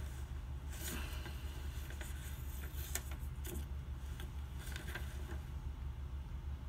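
Steady low hum with scattered soft clicks and rustles in a small room.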